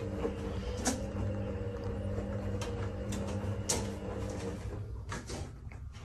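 A steady hum with a few sharp knocks against metal as a cat's paws strike the underside of a range hood, the loudest about a second in and near four seconds. The hum stops about four and a half seconds in.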